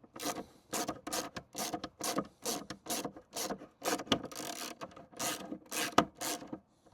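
Screws being driven into the plastic mirror housing of a Mercedes Sprinter W906 with a hand screwdriver, giving a run of short rasping ratchet-like clicks, about three a second, with one sharper click about six seconds in.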